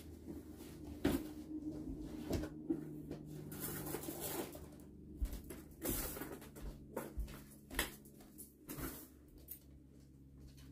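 Scattered knocks, clicks and fabric rustling of someone moving about and picking up clothes from a bed, over a faint steady low hum.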